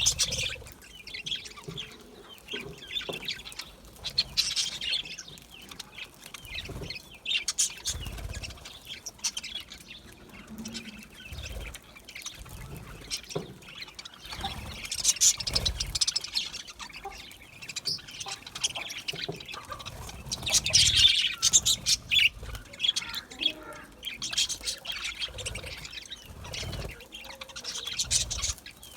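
A flock of budgerigars chirping and warbling in irregular bursts, with short louder spells, over occasional low thumps.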